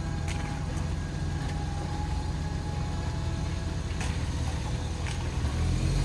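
A Toyota LandCruiser four-wheel drive's engine running at low revs as it crawls down a muddy bank into a shallow crossing. It grows louder near the end as the vehicle passes close by.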